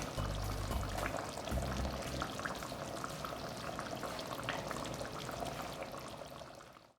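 A pot of fish curry bubbling and crackling as it simmers, with many small pops, over background music whose low notes drop away after about two seconds. It all fades out just before the end.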